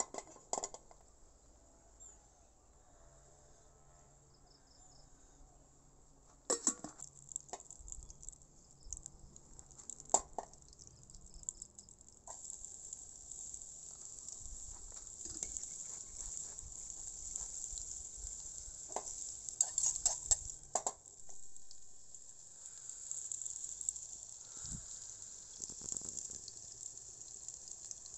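Sliced onions frying in oil in a small saucepan over a wood-fired rocket stove: a steady sizzle sets in about twelve seconds in. A few sharp knocks of the pan come before it and a cluster more partway through.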